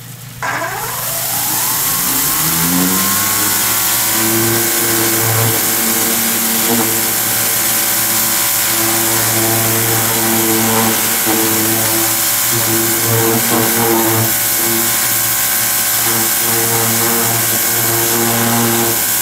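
Greenworks Pro 2200 PSI electric pressure washer spinning up about half a second in, then running steadily with the hiss of its water jet striking wooden deck boards.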